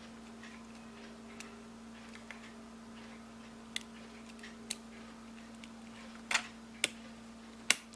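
Small metal clicks and taps of watch-repair tools against a wristwatch's case and plate, spaced irregularly. The sharpest clicks come near the end, as the plate is seated back over the movement. A steady faint hum runs underneath.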